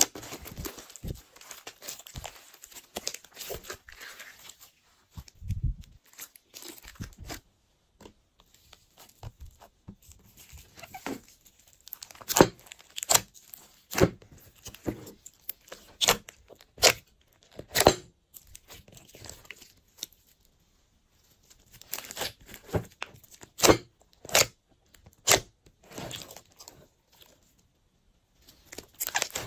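Hands squishing and stretching glossy slime: sticky, irregular crackling pops as the slime pulls apart. Partway through, the squishing moves to a mix of blue slimes, clay and foam beads in a glass dish, with short pauses between handfuls.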